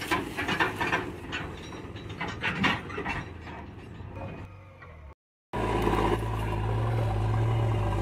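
Irregular clicks and rattles, loud at first and fading away over about five seconds. After a brief gap, a diesel engine of a tractor or backhoe loader running steadily with a low, even drone.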